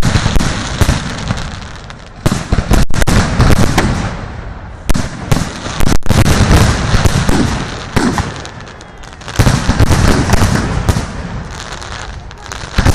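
Fireworks display: aerial shells bursting in rapid runs of bangs, coming in loud clusters with short lulls between them.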